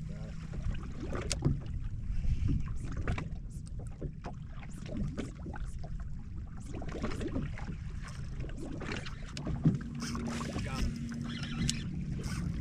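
Small waves lapping and slapping against the hull of a bass boat, with wind buffeting the microphone. A low steady hum comes in for about two seconds near the end.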